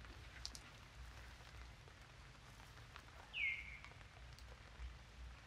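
Faint drops of water falling after rain, with a few scattered drips. About three and a half seconds in, one short high-pitched call falls in pitch and then holds briefly.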